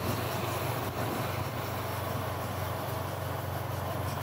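Motorbike engine running steadily while riding, a low even hum under wind and road noise.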